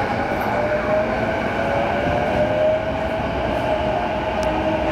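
JR East E233-5000 series electric train running, its traction motor whine rising slowly in pitch over a steady rumble, then levelling off: the train gathering speed.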